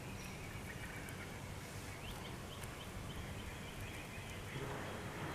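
Outdoor ambience: a steady hiss with a low rumble, and a few short chirping bird calls about two seconds in.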